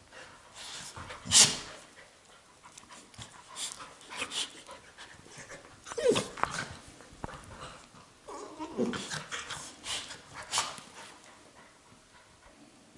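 Labrador retriever puppy and adult Labrador play-wrestling: short, irregular dog vocal sounds and breaths, the loudest about a second and a half in, dying down near the end.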